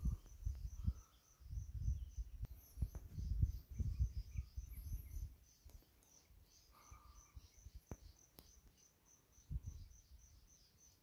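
An insect chirping steadily in a high, even rhythm, about three chirps a second. Irregular low rumbling bursts, the loudest sound, come over it in the first half and once again near the end.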